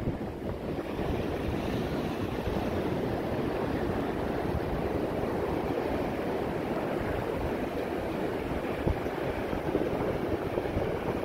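Steady wash of sea surf on a sandy beach, with wind rumbling on the microphone.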